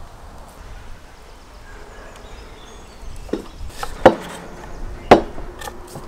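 Sharp knocks on wood starting about three seconds in, two of them loud: a knife cutting an onion on a wooden chopping board and drinking glasses being set down on the wooden table.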